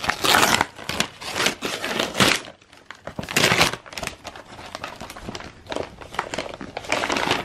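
Gift wrapping paper being peeled off a box and crinkled by hand, in irregular rustling bursts with a short lull about two and a half seconds in.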